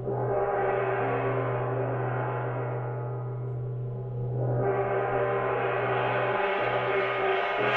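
Hand-held bossed brass gong struck twice, once at the start and again about four and a half seconds later, each stroke ringing on with a long, slowly fading hum.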